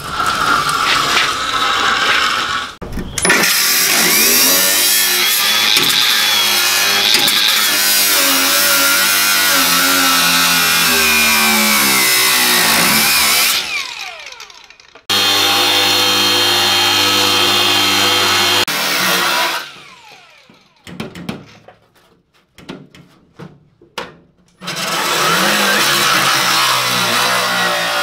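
An 18-volt cordless angle grinder cutting into the rusty steel battery tray in several runs, its motor pitch sagging under load and winding down each time it is released. Between runs there are short clicks and knocks.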